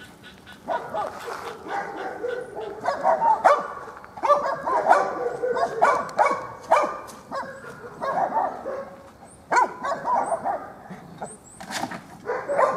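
A dog barking and yipping repeatedly, in short irregular calls with a few pauses of a second or two between them.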